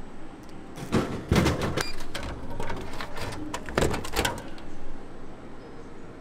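Clattering and rustling of handled items, in two bursts: one about a second in and another near four seconds in.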